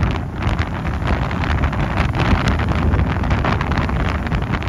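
Wind buffeting the microphone: a continuous rough rumble, heaviest in the low end, swelling unevenly.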